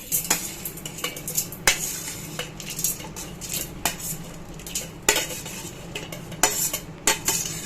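A spoon scraping and clinking against a cooking pan and a mixer-grinder jar as the cooked chutney mixture is scooped across, in a run of sharp scrapes and knocks. A low steady hum runs underneath.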